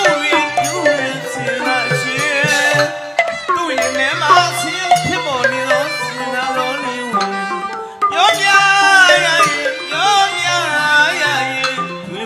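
Burmese hsaing waing ensemble music: a male voice sings a wavering melody over tuned drums and gongs.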